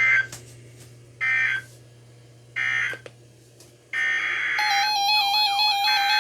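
Emergency Alert System data bursts on NOAA Weather Radio: three short raspy digital chirps about a second apart, the end-of-message code that closes the watch. About four seconds in, a longer data burst begins the header of the next alert, and a loud steady alert tone with beeping over it starts up.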